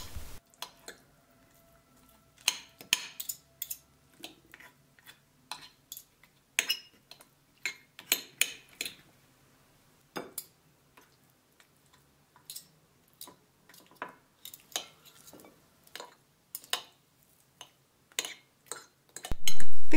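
Metal forks clicking and scraping against a glass baking dish while pulling boiled chicken off the bone, in scattered, irregular clicks with short quiet gaps between.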